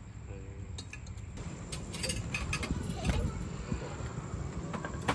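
Spoons and forks clinking against metal camping bowls and plates as people eat, a cluster of clinks about two seconds in and more near the end, over a steady low rumble.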